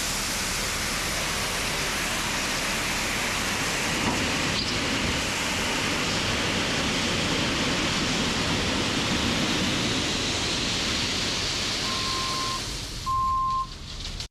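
Steady, loud rushing noise with no clear pitch, and two short, high, steady beeps about a second apart near the end.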